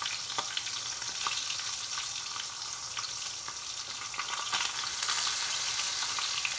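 Two raw pork chops just starting to fry in oil in a nonstick pan: a steady sizzling hiss with scattered crackles and pops.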